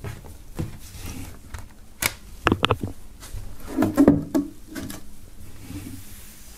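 Handling sounds as CD cases, paper and a shirt are moved about on a table: scattered light clicks and knocks, with a quick run of clicks about two and a half seconds in and a fuller knock-and-rustle around four seconds.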